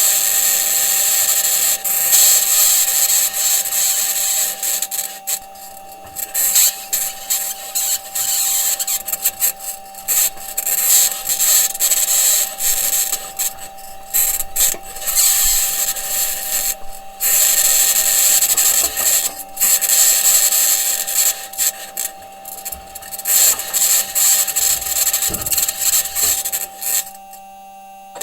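Perseverance Mars rover driving, recorded raw by its entry, descent and landing microphone: a loud, high-pitched scratching that comes and goes in uneven bursts over a steady tone, with the wheels and suspension working over the surface. The rover's engineers say the scratching may be electromagnetic interference from an electronics box or the mobility system interacting with the ground. Near the end the scratching drops away, leaving the steady tone.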